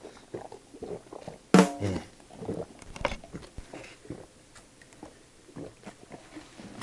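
A man gulping beer from a plastic cup, picked up close by a recorder held at his throat: a run of irregular swallowing clicks and knocks, with one short throaty gulp about a second and a half in.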